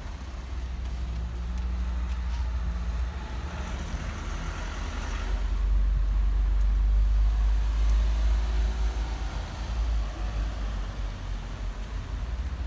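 Street traffic: a car engine hum that builds and passes, loudest from about five to eight seconds in, over a steady low rumble.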